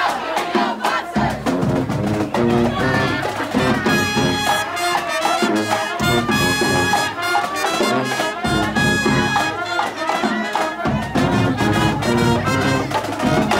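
High school pep band playing live: saxophones, trumpets and a sousaphone in a brassy tune over a steady beat.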